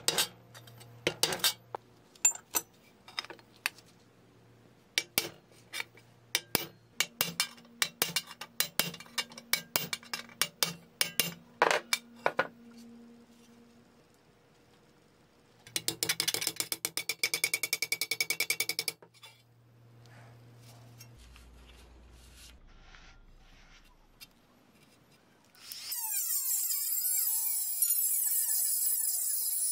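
Small hard parts clinking and tapping on a workbench, then a burst of rapid ratchet-like clicking. Near the end a small high-speed rotary tool spins up and runs steadily.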